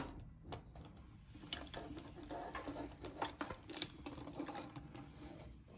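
Hard plastic parts of a Tobot Admiral robot toy being handled and fitted together: scattered light clicks and taps.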